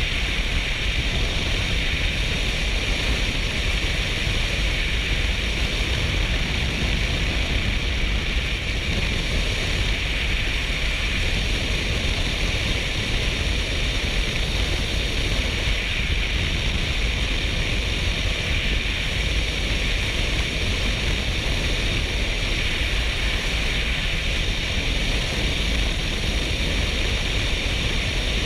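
Steady wind rush on a helmet-mounted GoPro microphone from a Kawasaki Versys 650 motorcycle riding at road speed, a deep rumbling hiss with no break or change, drowning out the engine.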